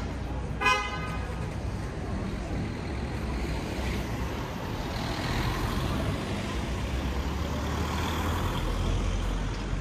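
City street traffic: a motor vehicle's engine rumbling as it passes, growing louder in the second half. A short, high pitched tone is heard once a little under a second in.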